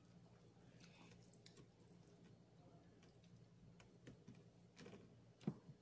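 Faint clicks and mouth sounds of eating a whole fish, with one louder click near the end, over a low steady hum.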